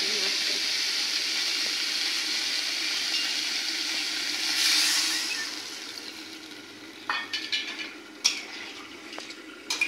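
Cauliflower and potato pieces frying and sizzling in a steel kadai, stirred with a metal spatula. The sizzle swells about halfway through, then dies down, and the spatula knocks against the pan a few times near the end.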